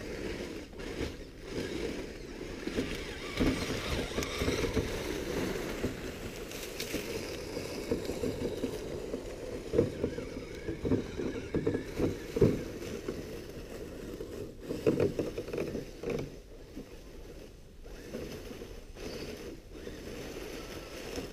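Redcat Gen8 RC crawler truck driving through dry leaf litter: its tyres rustle and crunch the leaves over a low steady rumble, with sharper crackles now and then.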